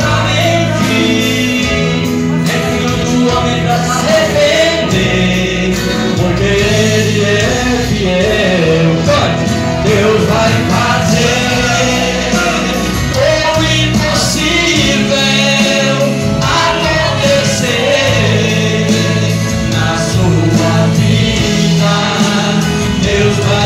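A live gospel song: a man sings through a microphone over amplified backing music with steady bass notes.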